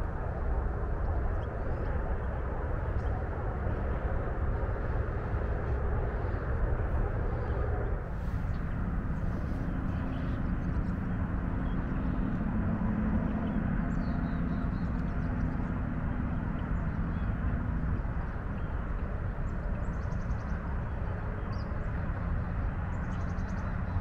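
Steady low rumble of highway traffic, with a passing engine hum that drops to a lower pitch about a third of the way in and fades out later. A few faint bird chirps sound over it in the second half.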